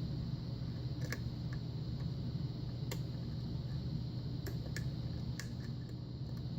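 Faint, scattered metallic clicks of a hook pick working the pins of an old six-pin Russwin pin-tumbler lock held under tension, pins clicking as they set or overset. A steady low hum runs underneath.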